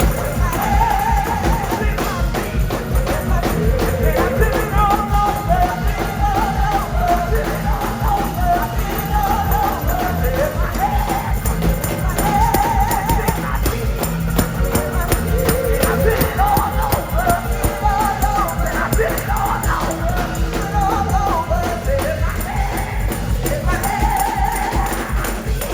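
Gospel choir singing with a live band: a strong bass and a steady drum beat under the voices.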